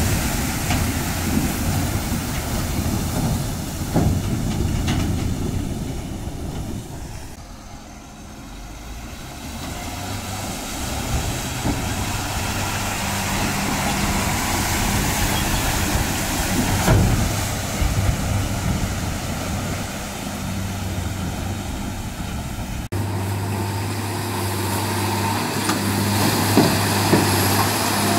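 Heavy Tata diesel trucks running under load as they crawl through deep mud, a steady low engine hum over the rough noise of tyres churning through the mud.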